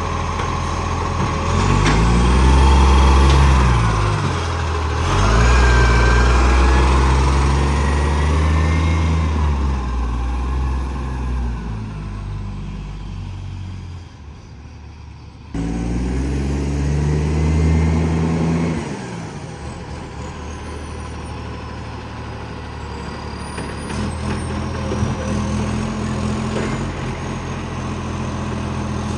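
Garbage truck's diesel engine revving up and down several times, its exhaust note made loud by a large exhaust leak. Midway it fades down, then comes back suddenly and revs again.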